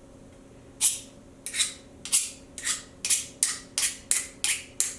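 Foley sound effects being recorded: a series of short, sharp scuffing strokes, about two a second and quickening toward the end, over a faint steady hum.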